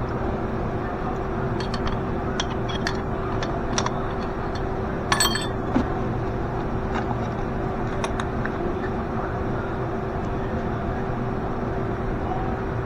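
A steady mechanical hum with a constant tone, with light metallic clinks and taps of hand tools scattered over it and a short cluster of louder clinks about five seconds in.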